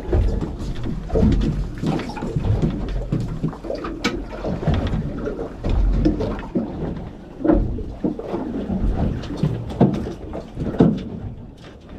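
Uneven low rumble of wind and water around a small fishing boat, with a few knocks on the hull or gear.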